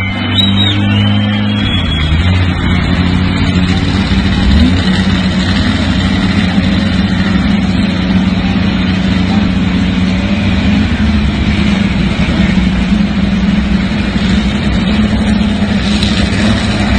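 Loud, steady motor hum that holds one pitch, with a noisy rush over it and no clear revving.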